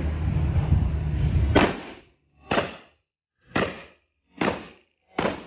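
Benelli M2 SP semi-automatic shotgun firing five shots in quick succession, roughly one a second, each a sharp bang with a short tail.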